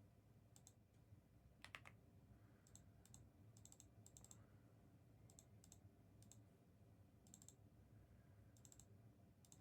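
Near silence, with a few faint, short clicks: a slightly clearer one a little under two seconds in and smaller ones scattered after it.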